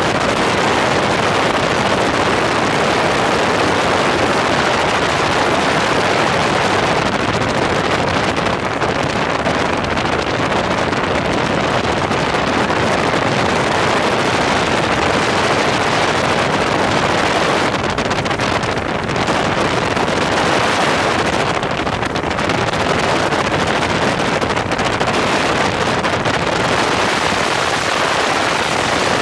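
Small helicopter in low flight, heard from a camera mounted outside the cabin: a steady, loud rush of wind over the microphone mixed with the running rotor and engine.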